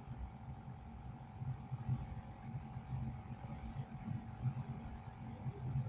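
A steady electrical hum with one constant tone, over an irregular low throbbing.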